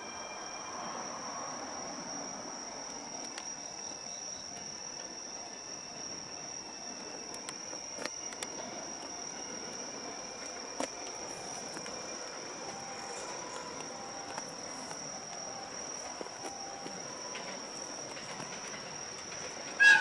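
Crickets trilling in one steady, unbroken high tone over a faint low rumble from a distant train. Just before the end comes one short, loud, sharp sound.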